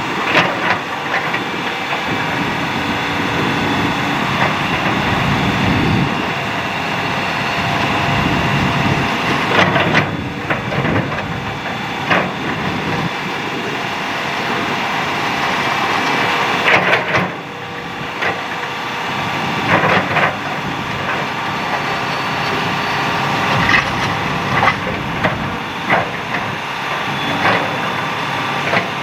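Hitachi hydraulic excavator's diesel engine running steadily under load, with repeated sharp clanks and scrapes from the bucket digging and dumping sand-and-gravel fill.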